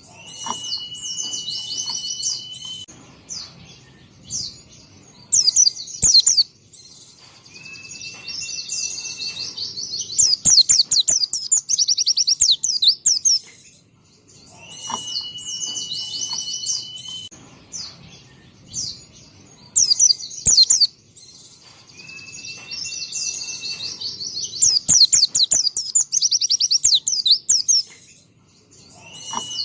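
White-eye (pleci) singing a fast, high twittering song broken by rapid trills, with a long steady whistled tone under the opening of some phrases and a few sharp clicks. The same song sequence repeats about every 14 seconds, as a looped recording would.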